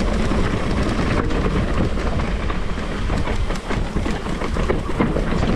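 Mountain bike rolling fast down a rough, stony trail: tyres over loose stones with a dense, continuous rattle of the chain and frame.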